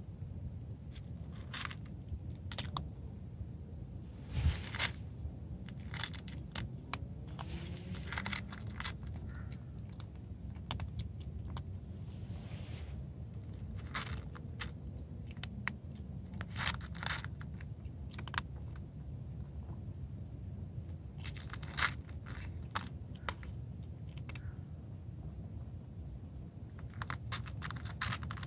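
A domestic cat eating dry kibble: irregular crisp crunches and clicks as it bites and chews the pellets, over a low steady rumble.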